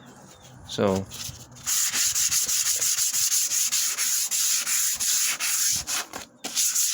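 Sandpaper rubbed by hand over an oak chair in quick back-and-forth strokes, smoothing the wood where a crack was repaired. The rasping starts about a second and a half in and breaks off briefly near the end.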